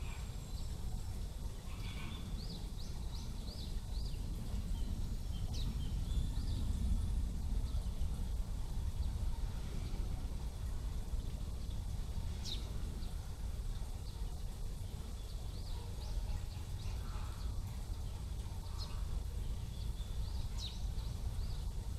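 Outdoor ambience: a steady low rumble with short, high chirps of small birds scattered through it, some in quick runs of four or five.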